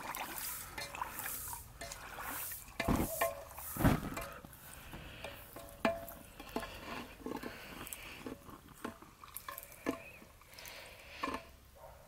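A hot steel knife blade being quenched in oil in an upright steel pipe: the oil crackles and bubbles around it, with sharp clinks of the tongs against the pipe, the loudest about three to four seconds in. This is the hardening quench of the blade.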